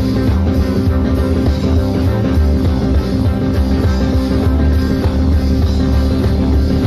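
Live jazz-fusion band playing at full volume, with a heavy electric bass line under the band.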